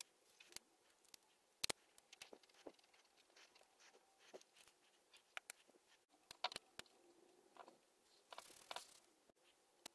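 Near silence broken by faint, scattered clicks and light knocks as the small metal drill press vise and its parts are handled. A brief rustle comes about eight seconds in.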